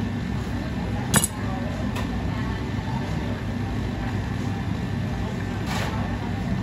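A kitchen knife set down on a plastic cutting board with one sharp clack about a second in, then lighter clinks, over a steady low kitchen rumble.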